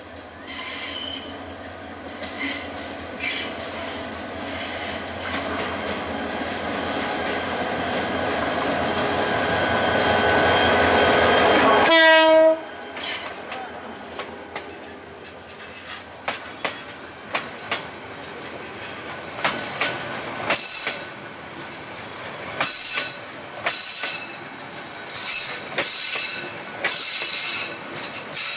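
Diesel locomotive of a passenger train approaching and passing close by: its engine grows steadily louder, then drops sharply in pitch and level about twelve seconds in as it goes past. The passenger coaches then roll by with irregular clicks from the wheels over rail joints and high wheel squeal.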